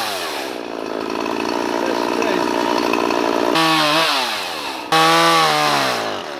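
Two-stroke chainsaw running: its pitch falls back off the throttle at the start and it runs steadily, then it is revved up sharply twice, about three and a half and five seconds in, each time winding back down.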